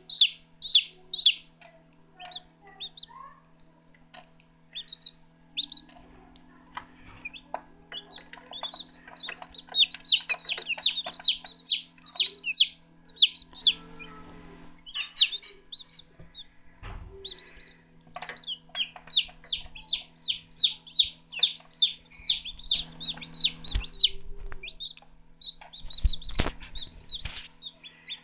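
Newly hatched Cheonggye (blue-egg chicken) chicks peeping: rapid runs of short, high peeps, several a second, coming in bursts with pauses between them. A steady low hum runs underneath, and a few dull knocks sound in the second half.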